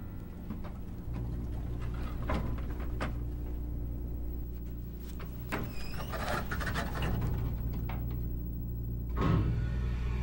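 Steady low hum of a moving elevator car, starting about a second in, with scattered small clicks and a brief squeak near the middle.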